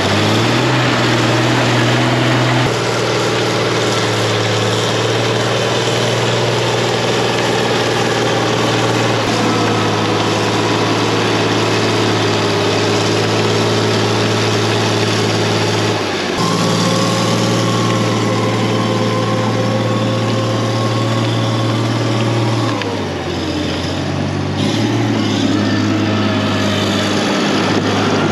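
A large vehicle's engine running steadily. Its pitch steps up and down several times and slides down once near the end as the engine speed changes.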